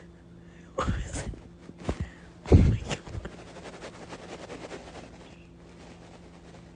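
Breathy human vocal sounds made close by: a few short bursts in the first three seconds, then a longer, fainter breathy sound with a rapid flutter that fades out about five seconds in.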